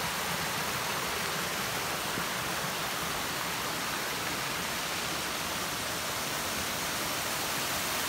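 Small waterfall and creek cascading over rocks, a steady rush of water, running after a rain storm.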